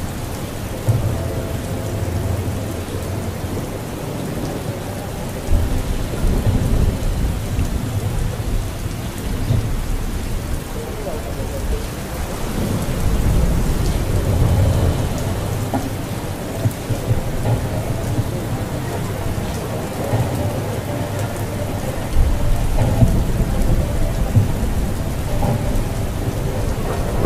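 Steady rain with several low rumbles of thunder, a thunderstorm heard through the scene.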